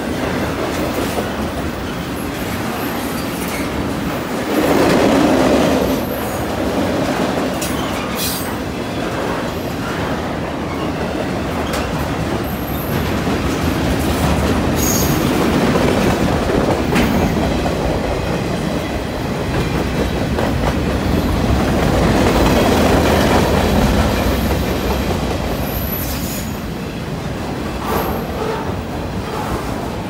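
Freight cars of a long CN freight train rolling past at track speed: a steady rumble of steel wheels on rail that swells and fades as the cars go by, with clicks over rail joints and a few brief high-pitched wheel squeals.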